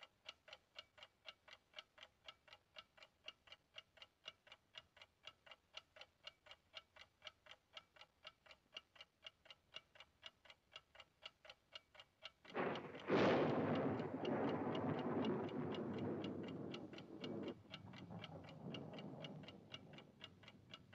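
A clock ticking steadily, about three ticks a second. About twelve seconds in, a loud rushing noise comes in over the ticking and runs on.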